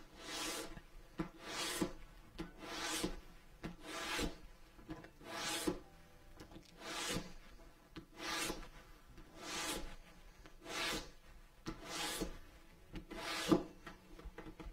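Fine sandpaper, about 220 grit, rubbed along a leather edge in about a dozen single strokes, roughly one a second. The strokes all go one way, to press the fibres down and smooth the edge towards a glassy finish.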